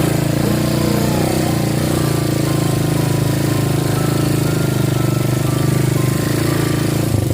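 ATV (quad bike) engine running steadily at a near-constant pitch with a rough, pulsing note.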